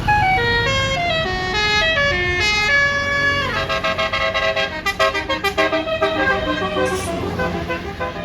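Bus basuri 'telolet' musical air horn playing a quick stepped melody of short notes, sliding down in pitch about three and a half seconds in, then a run of rapid staccato blasts. A low engine rumble sits underneath.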